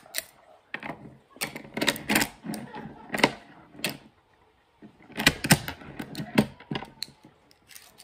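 Small magnet balls clicking and snapping together as they are handled, in quick irregular clusters of sharp clicks with a short pause about halfway through.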